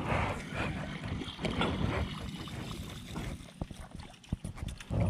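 A released snakehead splashing into the water at the side of a small wooden boat, followed by water sloshing and wind on the microphone. A few sharp light clicks come about three and a half to four and a half seconds in.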